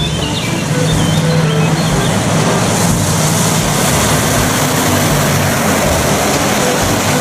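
MAN tanker truck with trailer driving past on a wet road: a steady diesel engine note under the hiss of tyres on wet tarmac, which grows louder about halfway through as the truck comes close.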